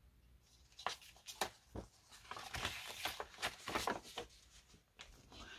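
Cross-stitch kit packaging being handled: a run of soft, irregular rustles and light taps for about three seconds, starting about a second in.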